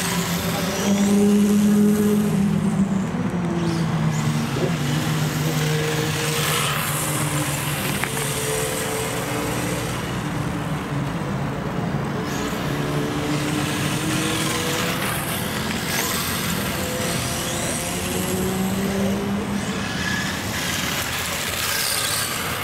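Radio-controlled cars driving around, their motor note rising and falling in pitch several times as they accelerate and pass by.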